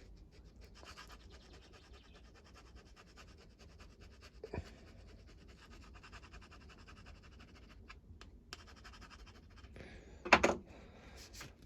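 Faint, rapid scraping of a hand tool against a hedge trimmer part, scraping off a spot of old paint. A light knock about halfway through and a louder knock near the end.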